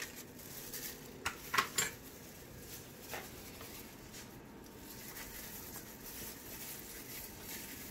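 A few short handling noises of foil and dishes, loudest about a second and a half in, as pieces of salmon are pressed into a foil-lined roasting pan; after that only faint, steady background noise.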